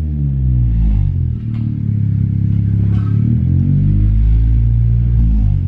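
A 2019 Honda Civic Si's turbocharged 1.5-litre four-cylinder runs through a newly fitted Skunk2 MegaPower aftermarket exhaust. The revs settle back from a light blip at the start, then hold steady, with brief rev changes about three seconds in and near the end.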